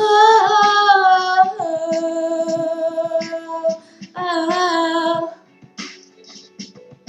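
A female voice sings long held notes in three phrases with short breaks, over backing music. The singing stops about five and a half seconds in, and the music goes on more quietly.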